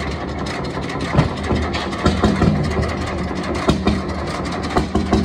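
1916 Jelbart No 12 crude oil tractor engine running steadily at low speed: a low chugging with a sharp loud beat about every second, unevenly spaced.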